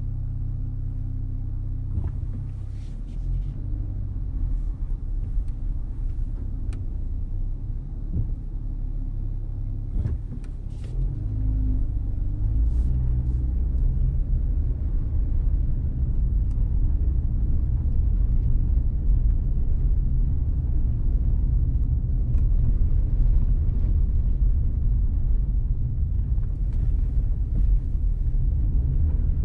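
Car driving slowly: a steady low rumble of engine and road noise, which grows louder about twelve seconds in.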